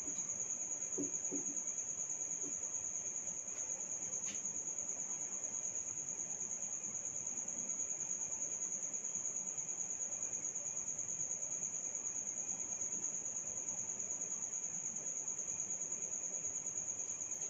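A cricket trilling: one high, fast-pulsing tone that never breaks. A couple of faint clicks sound about four seconds in.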